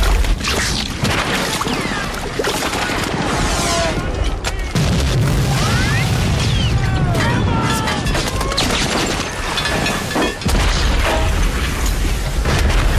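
War-film battle sound effects: rapid gunfire cracks and bullet impacts over churning surf and splashing water. Heavy explosion booms with long low rumbles come near the start, in the middle and again in the last few seconds.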